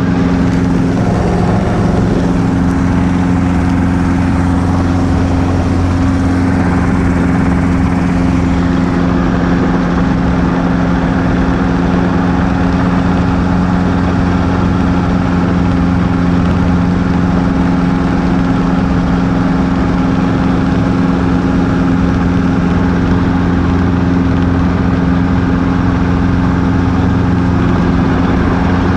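Robinson R22 Beta helicopter's four-cylinder piston engine and rotor system running steadily, heard from inside the small cockpit as a loud, even drone with a low hum.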